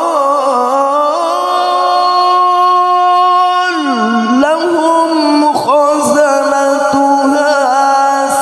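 A man reciting the Quran in melodic tilawah style into a microphone, drawing a phrase out in one long melisma. He holds a steady note with a light vibrato, swoops down and back up about four seconds in, then carries on with ornamented turns.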